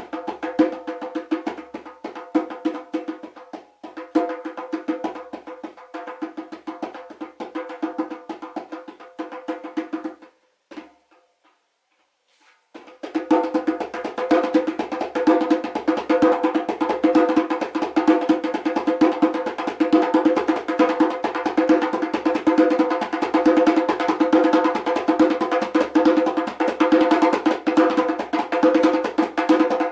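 Djembe played with the hands in a fast, steady stream of strokes. The drumming stops about ten seconds in for a two-second pause, then starts again.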